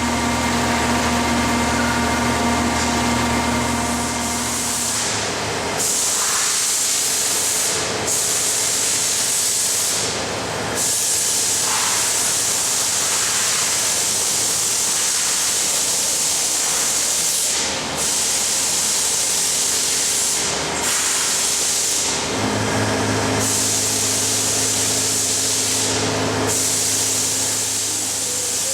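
Lucas CNC horizontal boring mill running under power: a loud, steady hiss with a low motor hum in the first few seconds that returns near the end. The hiss is broken by several brief dips.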